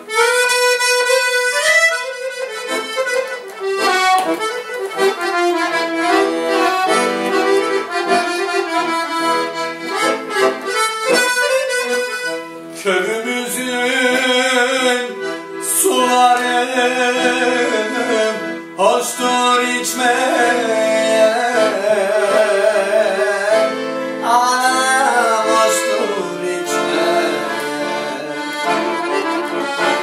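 Piano accordion playing an instrumental passage of a Turkish folk song, a continuous, busy melody.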